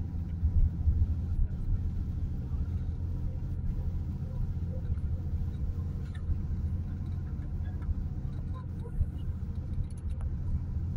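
Steady low rumble of a moving road vehicle's engine and tyres, heard from inside the cabin.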